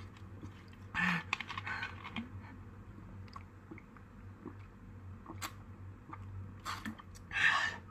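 Quiet gulping and swallowing of iced tea drunk straight from a bottle, with a few small clicks of the bottle being handled and a short breath about a second in and a longer one near the end.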